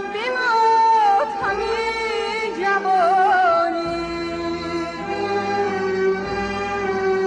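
Persian classical vocal music: a woman singing long held notes, ornamented with quick wavering trills about three seconds in, over instruments holding sustained notes.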